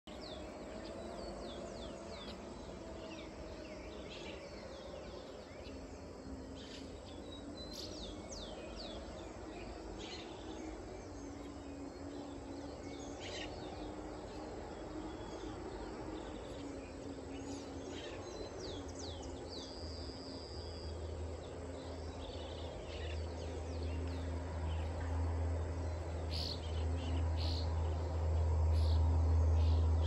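Many small birds chirping and singing in short calls over a faint steady hum. Over the last ten seconds a low rumble of farm machinery grows steadily louder.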